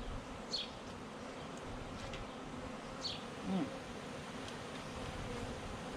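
Honeybees from a freshly installed package buzzing steadily in a crowd around the open hive. Short high falling chirps come about every two and a half seconds.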